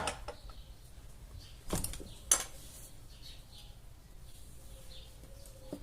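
Metal fan-motor parts being handled and fitted together during reassembly: four separate sharp clinks and knocks, two of them close together about two seconds in and one near the end.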